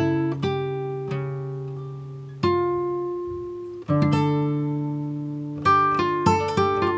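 Background instrumental music: slow notes and chords struck and left to ring out, coming closer together near the end.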